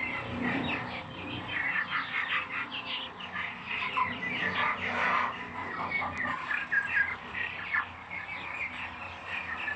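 Many small birds chirping at once, a dense chatter of short, overlapping calls.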